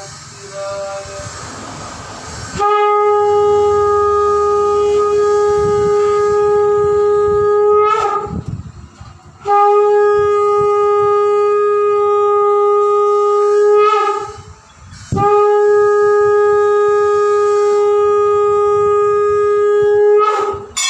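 Conch shell (sangu) blown in three long, loud blasts, each held on one steady note and ending in a quick upward bend, as part of a temple puja.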